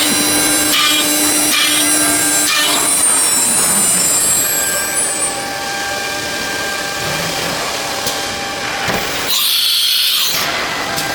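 Nesting CNC router's spindle cutting a wood panel: a steady machine whine over cutting noise. About nine seconds in comes a short burst of air hiss.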